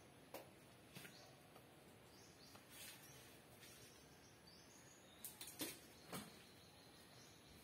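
Faint bird chirping, short rising calls repeated at irregular intervals, with a few sharp clicks or knocks, the loudest about five and a half to six seconds in.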